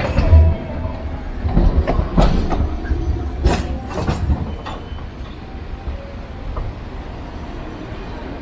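Hiroden 5100-series low-floor tram moving off along the track: its wheels knock irregularly over rail joints and points above a low running rumble. The knocks thin out and the sound fades after about five seconds as it draws away.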